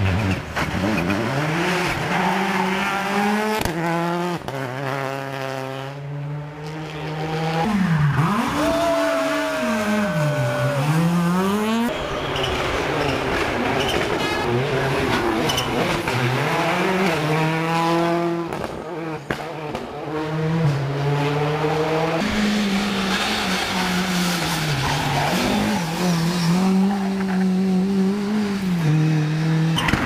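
Rally car engines at full stage pace, revving high and dropping repeatedly through gear changes and lift-offs, in a series of separate passes.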